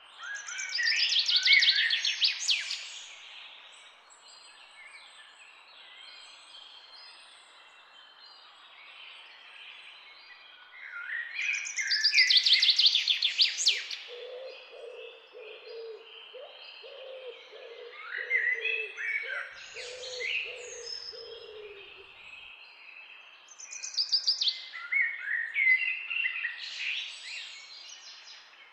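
Birdsong: a loud, rapid, high trilling phrase that comes back three times, about every eleven seconds, with softer chirps in between. In the middle a lower, softer series of short repeated notes joins in for several seconds.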